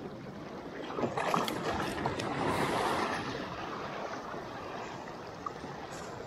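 Small waves lapping and washing over shoreline rocks, with a few light splashes and a louder wash swelling up about two seconds in; wind buffets the microphone.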